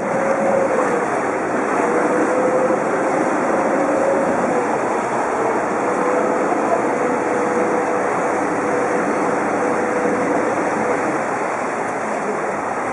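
Steady drone of a vaporetto (Venetian water bus) underway, heard from on board: a low, wavering engine hum under the rush of water churning along the hull.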